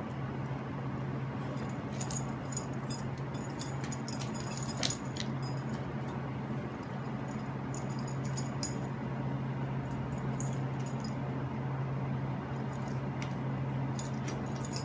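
Light metallic jingling and clinking of a puppy's collar tag and leash clip in bursts as it tugs and shakes a stuffed toy, over a steady low hum.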